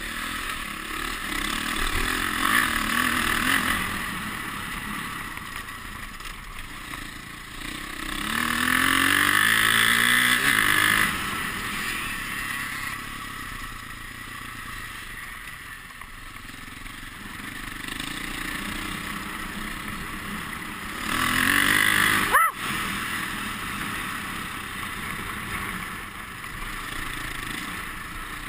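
Dirt bike engine running under load over rough ground. It climbs in pitch as the throttle opens about eight seconds in and again about twenty-one seconds in, with a sudden break just after the second climb.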